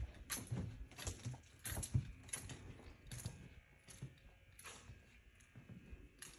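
Footsteps on a bare hard floor, about two a second, each a short knock with a gritty scuff, a little softer in the second half.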